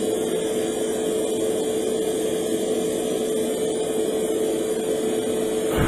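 Airbrush compressor running with a steady hum, and air hissing through the airbrush as primer is sprayed.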